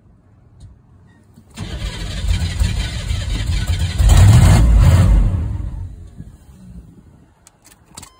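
Cold start of a 1987 Chevy Suburban's 6.2 L Detroit Diesel V8. The starter cranks the engine for a couple of seconds, and the engine fires and runs loudest for about a second. The sound then falls away, and a couple of clicks come near the end.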